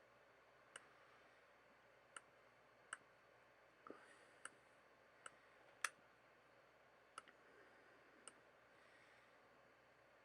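Faint computer mouse clicks, about nine single clicks at irregular intervals, a second or so apart.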